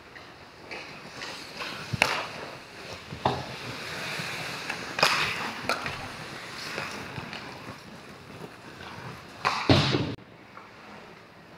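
Ice hockey play: skate blades scraping the ice, with several sharp clacks of sticks and puck and a loud half-second scrape near the end.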